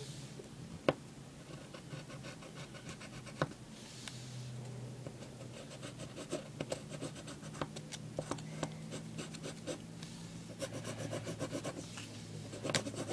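A marker drawing lines on origami paper: short scratchy strokes, coming in quick runs of about three or four a second later on, with a couple of sharp taps about one and three and a half seconds in.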